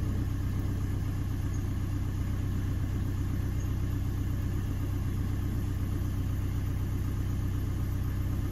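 Fiat Ducato van's diesel engine idling steadily, heard from inside the cab.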